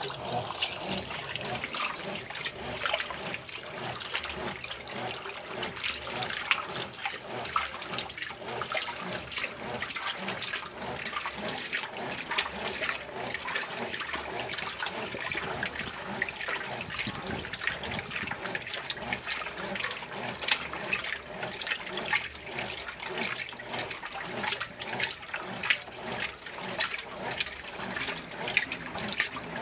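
Water splashing and sloshing continuously inside the tub of a Consul Maré Super 10.2 kg top-loading washing machine during its wash cycle, with many small irregular splashes.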